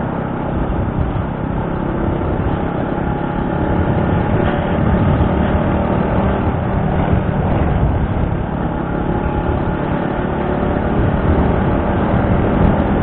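Motorcycle riding at speed: steady engine and wind noise rushing over an action camera's microphone, growing a little louder about four seconds in.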